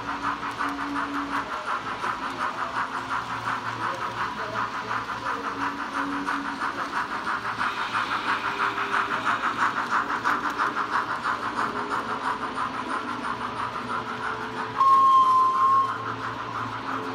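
A Rapido OO-gauge GNR Stirling Single model locomotive's DCC sound decoder plays rhythmic steam-exhaust chuffing through its onboard speaker as the model runs. Near the end comes a single whistle blast of about a second, the loudest sound.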